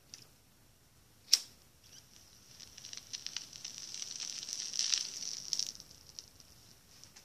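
A lighter clicks once, sharply, about a second in; then a few seconds of crackling and sizzling as the smoke is lit and drawn on, strongest near the end before dying away.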